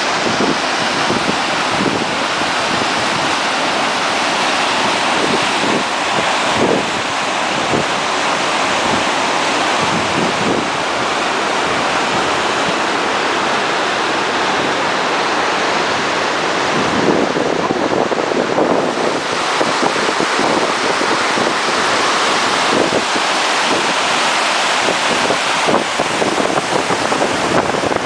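Mountain stream rushing loudly as whitewater rapids over rocks: a steady, unbroken roar of water.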